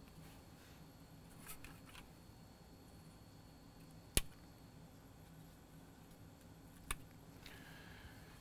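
Wire clippers snipping through thin basswood sticks: a sharp snap about four seconds in and another near seven seconds, with a few faint ticks earlier.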